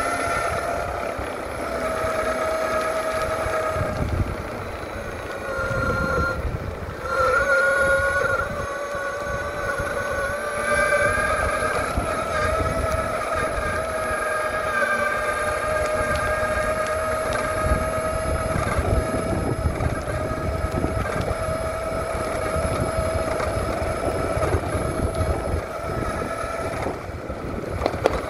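SYL-08 V3 electric off-road skateboard under way: its electric motors whine in a steady high tone over a low rumble from the tyres. The whine dips in pitch about four to seven seconds in, then climbs back.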